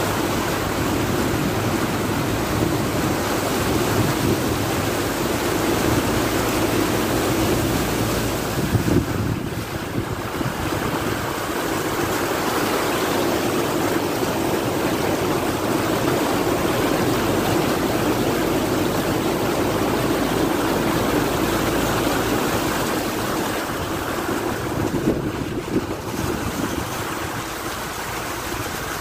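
Car tyres ploughing through deep floodwater: a continuous rush and splash of water thrown up by the front wheel, with the engine held at a steady hum in first gear underneath.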